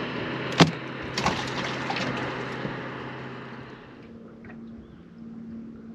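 Sounds on a bass boat's deck: a low steady hum with a water-and-wind hiss that fades out about four seconds in, leaving a fainter, higher hum. A sharp knock comes about half a second in, then a few lighter knocks.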